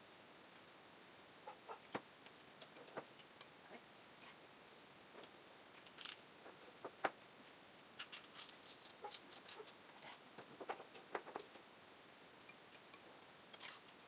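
Faint eating sounds: scattered small clinks of metal spoons and a fork against glass bowls, with mouth clicks and smacks from chewing meatballs.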